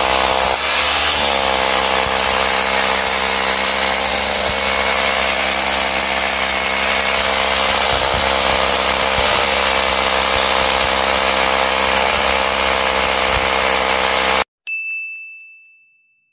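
Freshly repaired Bosch GBH 2-28 D rotary hammer running under load, drilling with a 16 mm bit as a test of its power; the sound holds steady apart from a short dip about a second in. It cuts off abruptly near the end, and a single chime rings and fades away.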